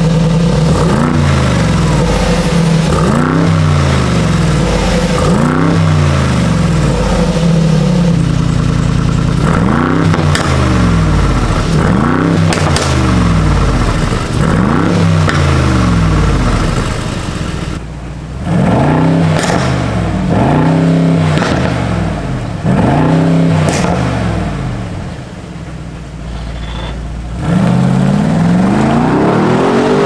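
Mercedes-AMG W463A G63's twin-turbo V8 revved repeatedly in place through an Fi Exhaust Ultra Edition valvetronic muffler: about a dozen blips, each rising and falling back to idle. In the later revs the exhaust valves are open.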